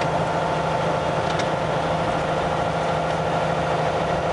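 Kenworth semi truck's diesel engine running steadily, with road noise, heard from inside the cab at an even drone.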